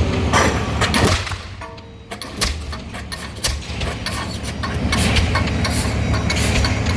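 Pile-driving rig with a diesel pile hammer: a heavy low rumble that drops away briefly about a second and a half in, then returns with a series of sharp bangs.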